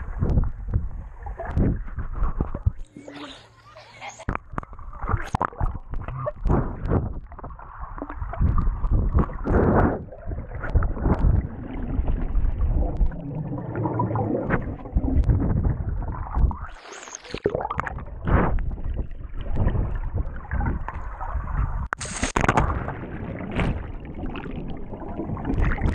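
Swimming-pool water heard from underwater: muffled churning and gurgling that rises and falls unevenly, with rushes of bubbles from swimmers moving nearby.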